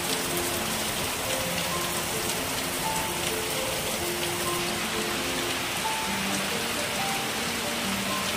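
Heavy rain pouring onto corrugated sheet roofs and ground in a steady, even hiss. Soft background music of slow single held notes plays over it.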